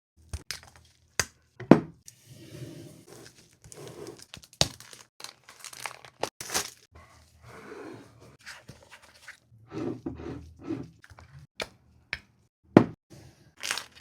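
Perfume packaging being unboxed by hand: paper or plastic wrapping tearing and crinkling, broken by irregular sharp taps and knocks. The loudest knocks come a little under two seconds in and near the end.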